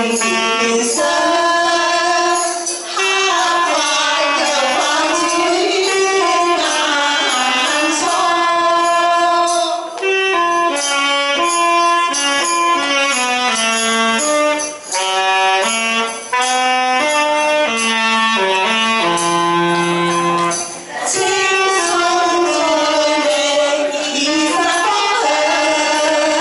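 A song performed live on alto saxophone with women singing through microphones, over a rhythmic percussion beat; the voices carry the tune in places and the saxophone plays stepped, held notes in others.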